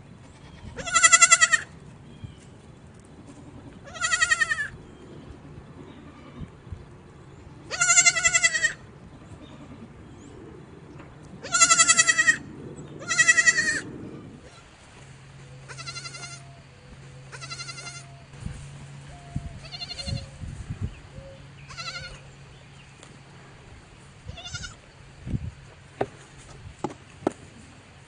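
Goats bleating: five loud, wavering, high-pitched bleats in the first half, then a run of fainter bleats, and a few sharp clicks near the end.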